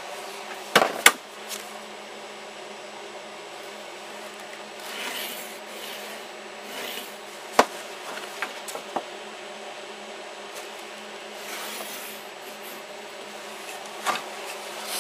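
A straight edge and tools being handled on a wooden board at a workbench: sharp wooden knocks about a second in and again near the middle, with light taps and rubbing between them, over a steady background hum.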